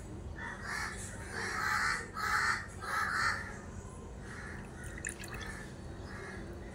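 A bird outdoors giving a series of harsh calls, loudest in the first three and a half seconds, then fainter ones. Milk is poured into a small clay pot near the end.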